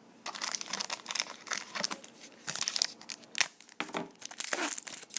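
Plastic trading-card pack wrapper crinkling and tearing in the hands, a dense run of sharp crackles. This is a football card pack being opened or crumpled.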